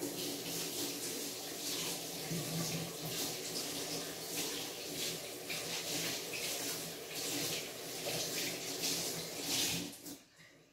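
Water running from a tap: a steady rush that starts abruptly and stops about ten seconds in.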